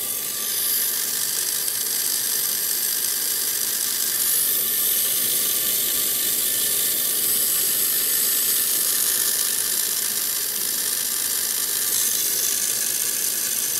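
Butane torch flame hissing steadily against the generator's aluminium block, with the whir of a small cooling fan driven by the Peltier generator's own output, spinning fast but not yet at full speed.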